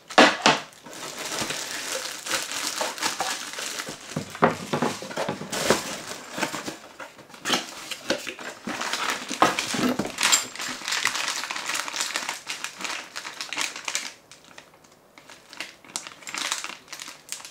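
Cardboard packaging and plastic bags being handled: irregular crinkling and rustling with sharp knocks and taps as parts are lifted out of the box, easing into a brief lull about fourteen seconds in.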